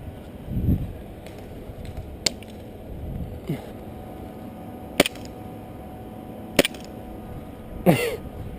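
Airsoft guns firing single shots: three sharp cracks a couple of seconds apart. A short vocal sound comes near the end.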